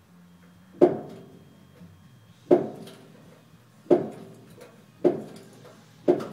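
Heavy metallic clanks from the 16-cylinder ALCO 251B diesel engine as the long-seized engine is forced to turn over. There are five clanks, each ringing briefly, coming closer together as the engine turns.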